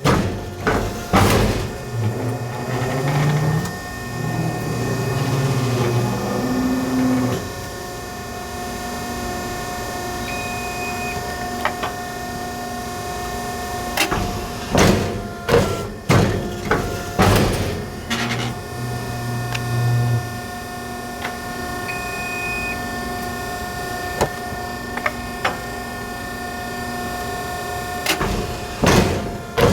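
Guillotine-style hydraulic paper cutter working through repeated cutting cycles over a steady machine hum. Each cycle is a cluster of sharp knocks and thuds, then a low hydraulic drone lasting a few seconds. The cycle comes around about every 14 seconds.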